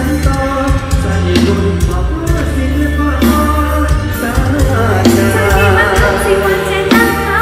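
Loud live band music with a singer over the stage PA: a steady bass and drum beat under a sung melody.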